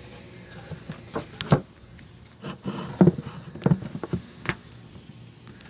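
Handling noises as a beehive nuc is closed up: a series of sharp clicks and knocks from the wooden box and a clear plastic cover sheet being moved and set in place.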